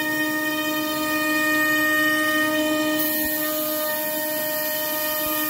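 Spindle of a home-built PrintNC CNC router cutting 17 mm construction plywood with a 6 mm two-flute end mill, ramping down in steps on a contour roughing pass: a steady whine of several held tones over the hiss of the cut. A brighter high hiss comes in about three seconds in.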